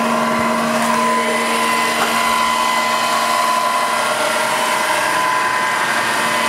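Southwestern Industries K3 knee mill's variable-speed head running under power, a steady machine hum and whine made of several steady tones. The head sounds good.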